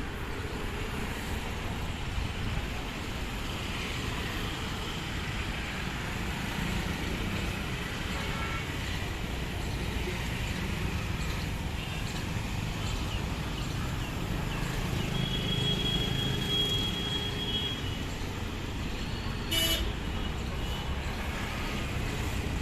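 Steady road traffic, a continuous low rumble of engines and tyres. A horn sounds one held note for about three seconds past the middle, and a short, sharp, loud sound cuts in near the end.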